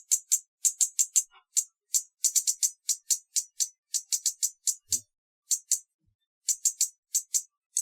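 Hummingbird chipping: a rapid series of short, high-pitched chips, about five or six a second, in runs broken by brief pauses.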